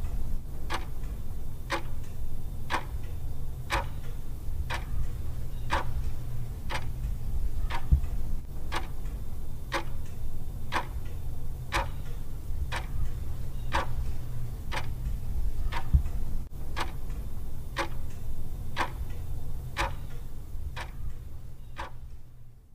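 A clock ticking steadily, about once a second, over a low steady hum; it fades out near the end.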